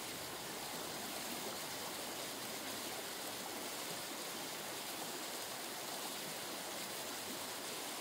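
Mountain stream rushing over rocks, a steady even rush of water.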